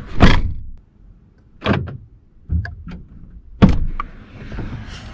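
Truck's driver door being opened with a loud clunk, then a few knocks and thuds and a sharp click about three and a half seconds in as someone gets out of and back into the seat, with a soft hiss near the end.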